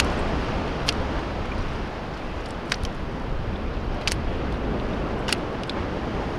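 Wind rumbling on the microphone over the steady wash of sea water against a breakwater, with a handful of short, sharp clicks scattered through it.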